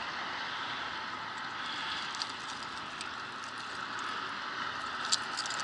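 Steady outdoor hiss of wind and water, with a few sharp metallic clicks about five seconds in as pliers work the lure's hooks free from a hooked remora's mouth.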